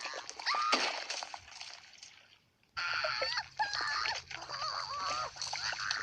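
Cartoon soundtrack: short, high-pitched, squeaky character vocalizations with sound effects over a steady hum, cutting out briefly about two and a half seconds in and then resuming.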